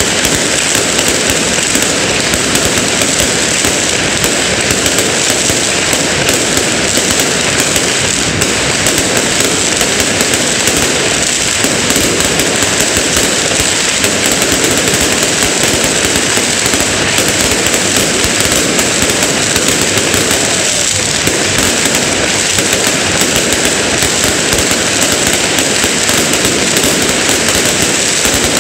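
Fireworks and firecrackers going off in a dense, continuous crackle with no break.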